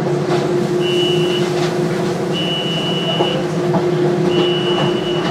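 Steady electrical hum of a stopped suspended monorail car (Düsseldorf Airport SkyTrain). Over it, a high electronic beep sounds three times, each about a second long, roughly every two seconds.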